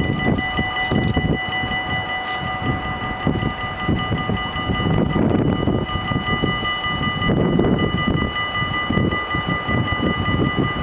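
Electronic warning bells of a Dutch automatic level crossing ringing continuously as a steady, high chiming tone, while the barriers come down ahead of a train. Beneath them is a loud, uneven low rumble.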